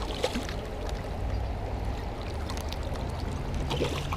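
Steady rush of high river water pouring through an open dam, with a few small splashes near the end as a hooked pickerel thrashes at the surface.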